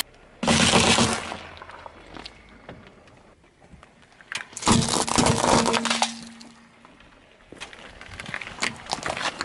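Car tyre rolling over and crushing objects in turn: eggs cracking in a cardboard carton about half a second in, a plastic bottle of gel beads cracking and bursting about halfway through, then a run of lighter plastic cracks from a plastic scoop near the end.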